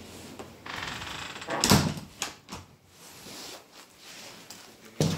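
A white-framed glass terrace door being handled: a rough rolling scrape about a second in, then a loud knock of the door against its frame, and a second knock near the end.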